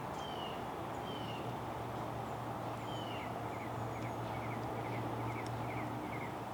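Small birds calling outdoors: a few short falling chirps, then from about halfway a run of quick repeated short notes, over a steady low hum.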